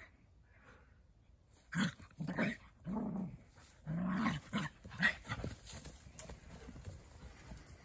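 Dogs play-fighting, growling in about six short bursts between about two and five and a half seconds in.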